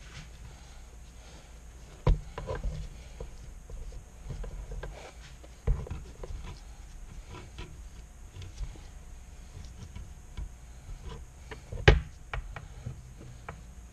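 Workbench handling noises: a rag rubbing over a clamped knife handle and spring clamps being shifted, with a few sharp knocks, the loudest near the end.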